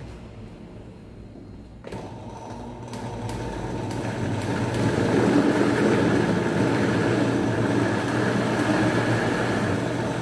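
Countertop blender switched on about two seconds in, its motor running and growing louder over the next few seconds as it grinds raw chicken breast with garlic, onion and seasonings into a heavy paste.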